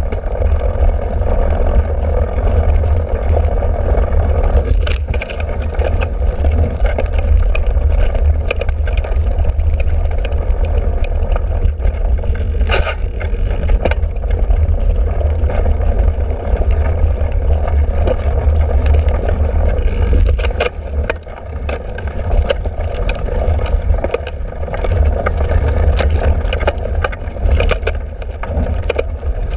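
Wind buffeting the microphone and tyre noise as a cyclocross bike rides over grass and mud, with scattered clicks and knocks of the bike rattling over bumps. The rumble eases briefly about two-thirds of the way through.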